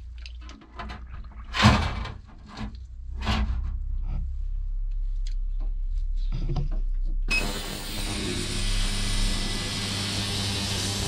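Wire parts basket clanking against the stainless steel tank of an ultrasonic cleaner as small carburettor parts are lowered into the solution. About seven seconds in, the ultrasonic cleaner switches on with a sudden, steady hiss over a low hum.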